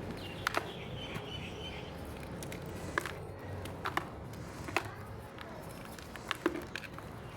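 Block of gym chalk being crumbled, giving a handful of sharp, crisp cracks spread out over several seconds over a steady low background hum.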